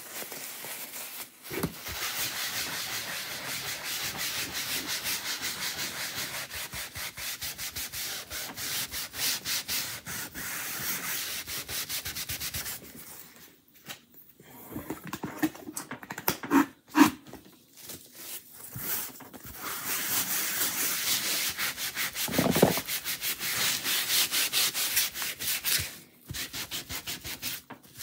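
A damp wipe rubbed quickly back and forth over a plastic silkscreen transfer, scrubbing dried chalk paste off the mesh. There are two long spells of steady rubbing, with a pause about halfway through that holds a few knocks and handling sounds.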